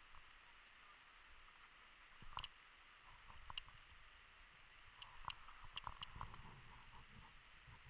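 Near silence broken by a few faint short clicks and soft rustling, about two seconds in and again around five to six seconds in.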